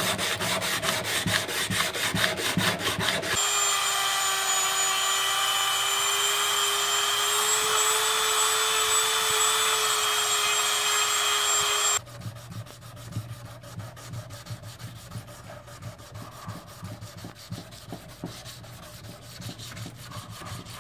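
Hand sanding a Damascus steel knife blade with sandpaper, in quick rhythmic rubbing strokes. After about three seconds a small handheld power tool takes over with a steady high-pitched whine for about eight seconds. It cuts off suddenly and quieter, slower hand-sanding strokes follow.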